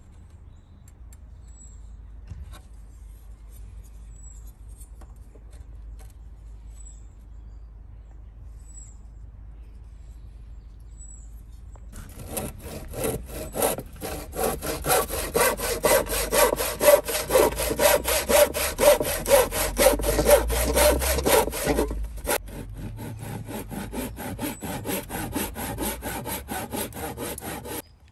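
Hand saw cutting a rebate into a softwood timber batten: quick back-and-forth strokes start about twelve seconds in, are hardest in the middle, lighter for the last few seconds, and stop just before the end.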